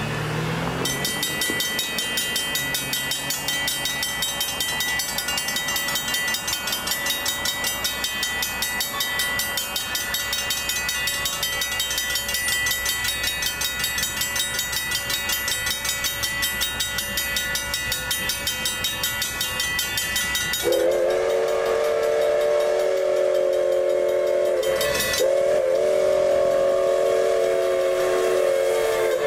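Electronic railroad crossing bell ringing rapidly and steadily while the gates are down. About two-thirds of the way through, a train horn sounds its chord in a long blast, breaks briefly and sounds again for the approaching train.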